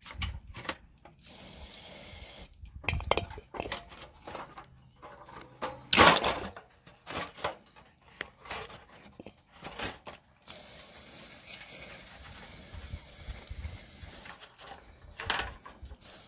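Aerosol electrical contact cleaner sprayed onto an impact driver's motor and trigger switch, a short burst about a second in and a longer steady burst near the end. Between the bursts come clicks and knocks of the parts being handled, the loudest about six seconds in.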